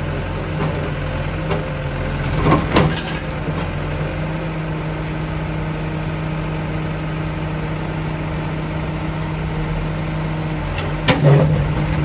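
Fiat-Hitachi FB110.2 backhoe loader's diesel engine running steadily as its backhoe bucket works against a concrete wall. Short crashes of breaking concrete and rubble come about two and a half seconds in and again near the end.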